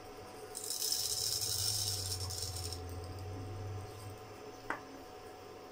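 Split urad dal dropped into hot sesame oil in a nonstick pan, sizzling for about two seconds and then stopping.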